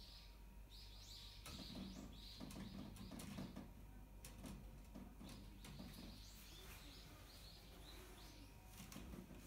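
Faint small birds chirping, short high chirps repeated several times a second. From about a second and a half to three and a half seconds in, and again briefly near the end, there are clicks and a scratchy rattle, fitting a kitten's claws catching in a window-screen mesh as it climbs.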